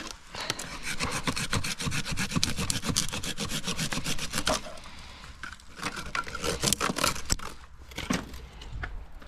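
Dry stems and twigs being pulled and dragged by gloved hands, scraping and crackling in a dense run for the first four seconds or so, then in a few shorter bursts with one sharp snap near the end.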